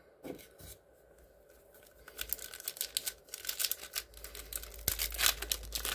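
The foil wrapper of a Topps Prime football card pack being torn open and crinkled by hand, a dense crackling that starts about two seconds in.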